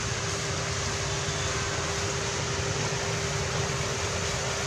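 Electric pedestal fans running at speed to winnow paddy, a steady rush of blown air with a steady hum, as grain is poured through the airflow.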